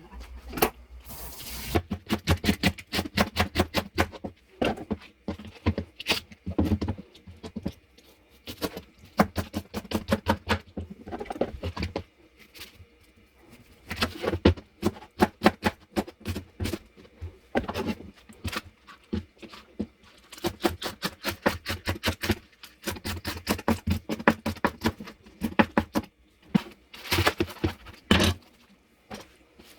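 Rapid knife chopping on a cutting board: quick, even strokes in long runs, broken by short pauses.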